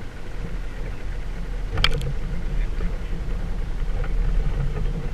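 Motorboat running across open water: a steady low rumble from the engine and hull, with a sharp knock about two seconds in.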